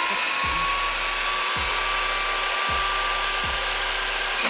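Table saw motor running at full speed with a steady high whine, its blade spinning (mounted with the teeth reversed) to drive a broomstick out of a launcher. Right at the end comes a sharp crack as the broomstick is fired.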